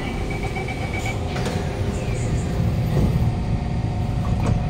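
Kawasaki C151 metro car standing at a platform with its doors open: a steady low rumble and hum from the train, with a steady high tone for about the first second and a few short knocks.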